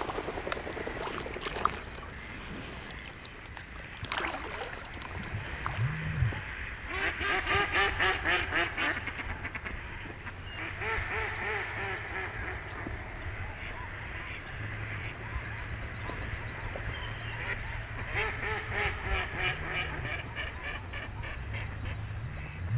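Ducks quacking in quick chattering strings. One long run of rapid quacks comes about a third of the way in and another near the end, with fainter calling between.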